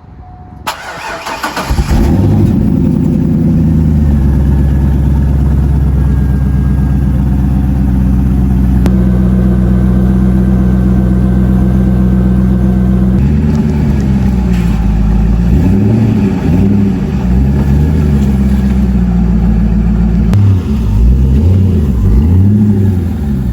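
Chevrolet C5 Corvette's 5.7-litre V8 cranked and started, catching about two seconds in and settling into a steady idle. In the second half the revs rise and fall several times with light throttle blips.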